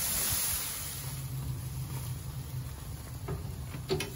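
Pork chops sizzling on a gas grill: a steady hiss, strongest in the first second, with a low hum underneath through the middle. A couple of light clicks near the end.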